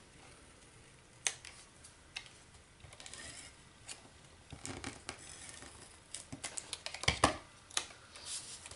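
A Fast Fuse adhesive applicator gun run along a small strip of paper, with short scraping runs, small clicks and paper rustling. A cluster of knocks on the tabletop comes about six to eight seconds in, the loudest near seven seconds.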